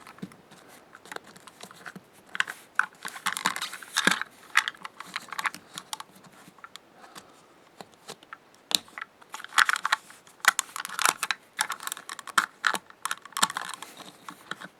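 Small plastic toy parts clicking and rattling as they are handled: the tank tracks and wheels of a die-cast monster truck toy being taken off and fitted, in irregular sharp clicks with bursts of busier rattling.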